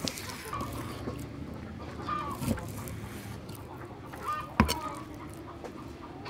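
Cleaver cutting raw beef on a thick wooden chopping block: a few light knocks and one sharp chop about four and a half seconds in. Domestic fowl call several times in the background.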